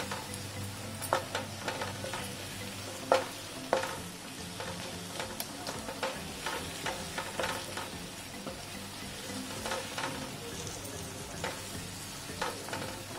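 Onion-tomato masala sizzling in a nonstick frying pan as a wooden spatula stirs it, with irregular scrapes and taps of the spatula against the pan; the sharpest taps come about three seconds in. The spiced masala is being cooked down.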